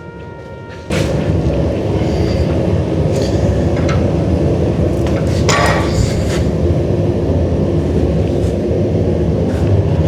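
Music, then about a second in a loud steady roar of shop equipment at the forge, typical of a gas forge burner, starts suddenly. A few sharp metal clinks sound over it.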